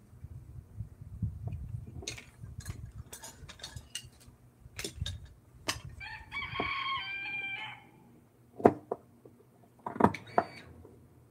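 A rooster crowing once, a call of nearly two seconds in the middle, among scattered sharp knocks and clicks.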